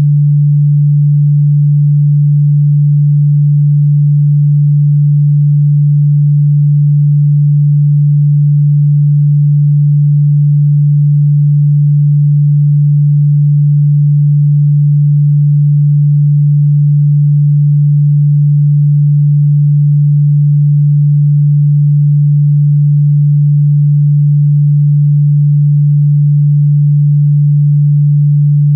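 A single steady, low pure tone near 150 Hz, held without any change: a synthesized sine tone of the kind played as a chakra-meditation frequency.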